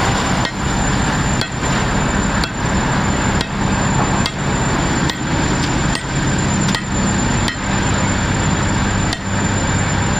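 Heavy steel-works machinery running with a steady low hum and a sharp metallic knock a little under once a second.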